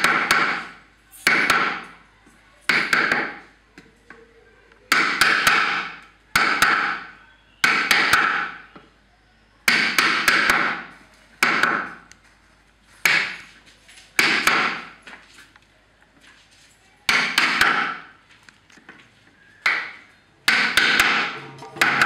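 Hammer driving a carving chisel into a wooden djembe shell, cutting a geometric relief pattern: about fifteen sharp knocks, irregularly spaced one to two seconds apart, some doubled, each dying away with a short ringing tail.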